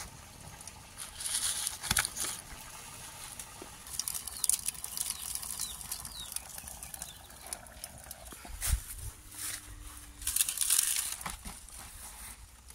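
Fresh banana leaves rustling and crinkling as they are handled, in several separate bursts with a few light knocks between them.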